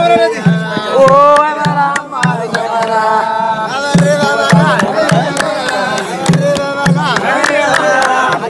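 A group of young men singing a Gurage traditional song together, with a hand drum struck about twice a second. The drum beat pauses briefly partway through and then picks up again.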